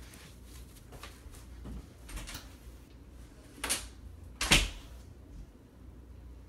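Handling noises from a gimbal unboxing: light clicks and rustles, then two sharp knocks or clacks about three and a half and four and a half seconds in, the second the loudest.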